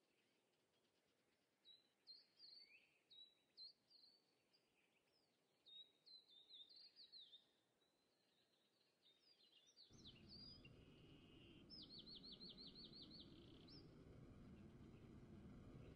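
A small songbird singing faint, quick phrases of sliding chirps that end in a fast trill of about ten notes. About ten seconds in, a steady low rumble of background noise comes up under the song.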